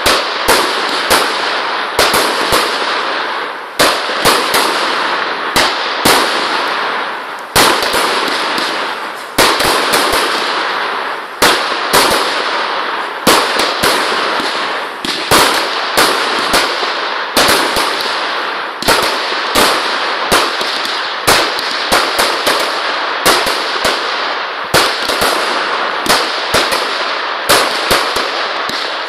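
Aerial fireworks bursting overhead: a long run of sharp bangs, irregularly spaced at about one or two a second, over a continuous crackling hiss.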